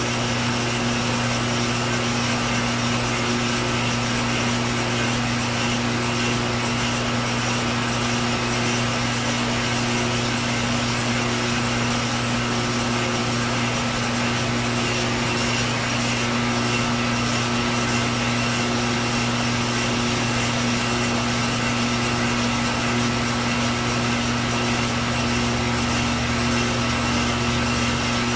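A machine steadily cutting a glass stern tube in one continuous pass, the tool scraping with no break, over the steady hum of a shop vacuum pulling away the dust.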